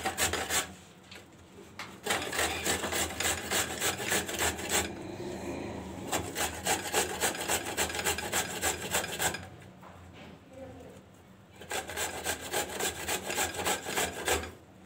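Carrot being grated on a stainless-steel box grater: quick, repeated grating strokes in a steady rhythm, stopping twice for a second or two.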